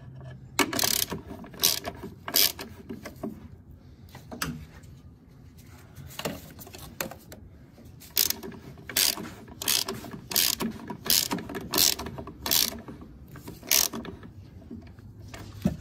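Hand ratchet wrench clicking in short strokes, about one swing a second with a pause in the middle, as it threads the upper engine mount bolts of a 2.2L Ecotec in a little at a time.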